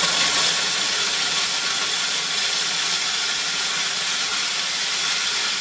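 A180 corn mill with 180 mm grinding plates cracking dry corn kernels at full feed: a loud, steady rushing hiss of grain being ground, rising suddenly at the start as the feed gate is opened wide.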